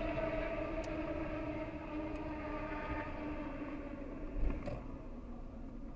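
Steady drone of a slowly driving car heard from inside the cabin, with a low thump about four and a half seconds in.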